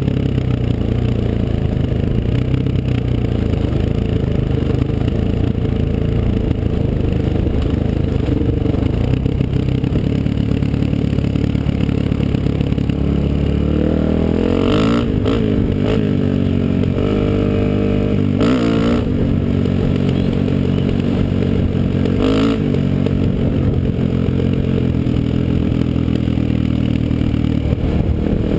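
Honda XR400 dirt bike's single-cylinder four-stroke engine running under way, with the engine note rising and falling several times about halfway through. A few sharp clatters cut in around the middle.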